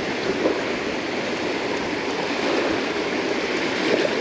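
Small waves washing and lapping on the sand at the shoreline, a steady rush of surf.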